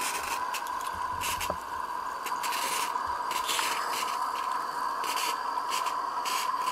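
Small propane-fired live-steam model locomotive working on its demonstration track: irregular short puffs and scrapes over a steady high tone.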